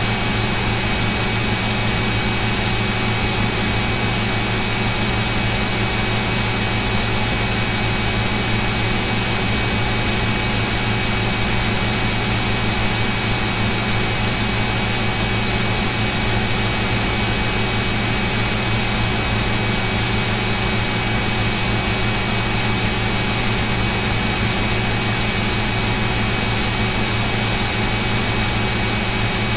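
Steady, unchanging hiss with a constant low hum and a few faint steady tones: background noise picked up by an open microphone during a screen recording.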